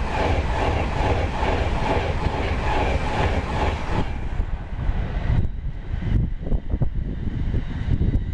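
A train passing at speed with a rhythmic pulsing that fades away about four seconds in, followed by wind buffeting the microphone.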